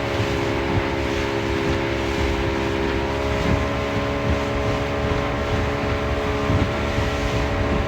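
Outboard motor of a small aluminium tinny running steadily under way, with a constant rush of wind and water noise from crossing choppy water.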